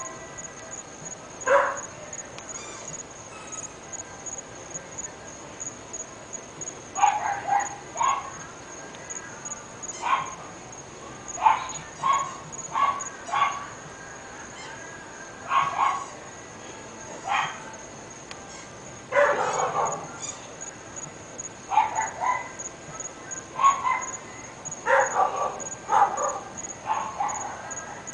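Dogs barking in short, separate barks at irregular intervals, some singly and some in quick runs of two or three. A steady high-pitched tone runs underneath.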